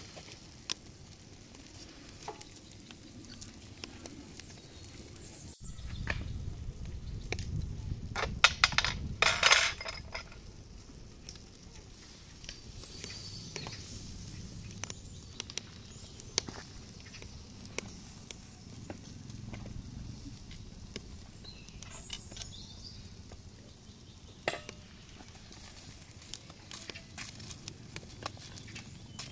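Salmon grilling in wire grill baskets over hot coals, with a steady sizzle and scattered sharp metal clinks as the baskets and fish are handled. A burst of dense clattering rattle comes about eight to ten seconds in and is the loudest part.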